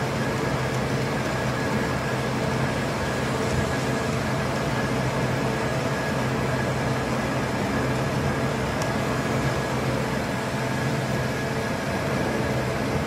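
Large band saw running steadily, its blade cutting through a thick explosion-bonded aluminium–steel clad plate: an even machine hum with a few steady tones under a hiss of cutting.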